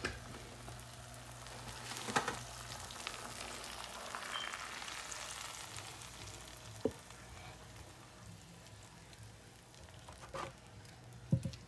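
Hot butter sauce with onions and bell peppers sizzling, a steady frying hiss that is strongest in the first half and fades later on. A few light knocks of the pan or utensil come about 2, 7 and 10 seconds in.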